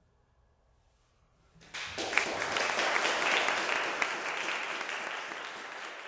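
Near silence, then about two seconds in an audience starts applauding; the clapping is loudest a second later and slowly tapers off.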